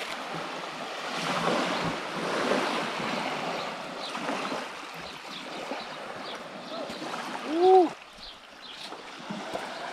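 Hot water poured from a thermos into a drip coffee bag in a metal tumbler, a splashing trickle lasting a few seconds from about a second in. Near the end a single short pitched sound rises and falls, the loudest thing heard.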